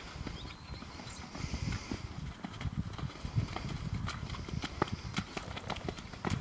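Hoofbeats of a ridden horse walking on wet, muddy arena footing: an uneven run of dull low thuds with small clicks.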